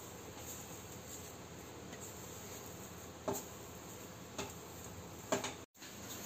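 Yeasted donut dough being kneaded by hand on a granite countertop: quiet handling under a steady hiss, with three light knocks, the first about three seconds in and the others about a second apart.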